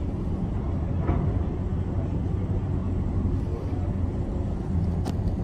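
Steady low engine rumble of heavy demolition machinery, muffled through a window pane, with one sharp click about five seconds in.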